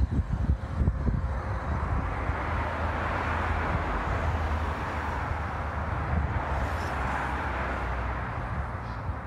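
Wind rumbling and buffeting the microphone, over a rushing vehicle noise that swells through the middle and eases off near the end.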